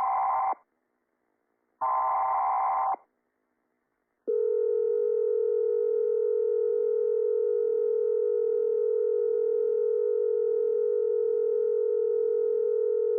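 Simulated Emergency Alert System alert signal: two short buzzy data bursts of about a second each, the end of the alert header, then after a pause of about a second a loud, steady electronic attention tone begins about four seconds in and holds unbroken.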